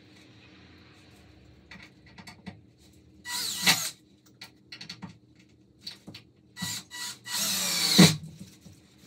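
Cordless drill running into a wooden frame in two bursts: one about three seconds in, and a longer, louder one near the end that peaks just before it stops. Two short blips of the trigger and light knocks of the tool on wood come between.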